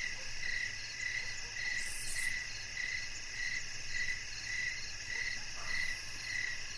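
Crickets chirping steadily, an even pulse of about two chirps a second.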